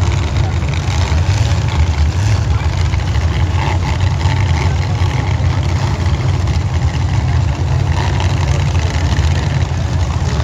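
Demolition derby cars' engines running together, a steady low rumble.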